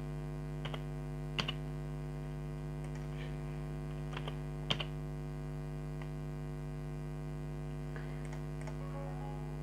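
A handful of scattered keypresses on a laptop keyboard as a short password is typed, over a steady electrical hum.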